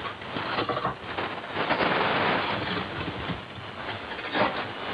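Shortwave AM broadcast reception through a Kenwood TS-50 receiver with no programme speech, only a steady hiss of static with scattered crackles.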